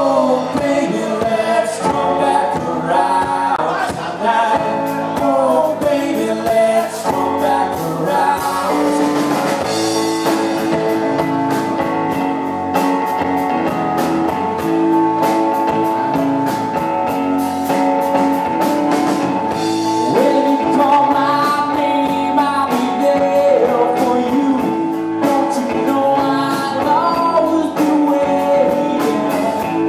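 Live rock band playing a song: electric guitar with a male lead vocal sung into the microphone, over a steady beat.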